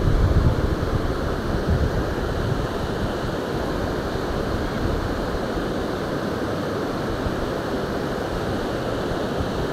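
Steady rushing of a river's current, an even noise without breaks, with a low rumble in the first second.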